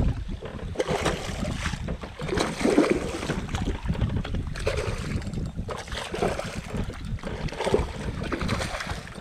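Wind buffeting the microphone, with water splashing beside the boat as a hooked fish thrashes at the surface by the landing net.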